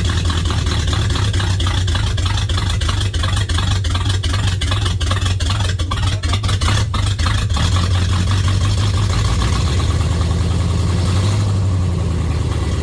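Mercedes-Benz 500SEL's M117 V8, its top end freshly overhauled and fitted with later 500/560 cylinder heads, idling steadily on its first run after the rebuild. A run of rapid clicks comes through the middle few seconds.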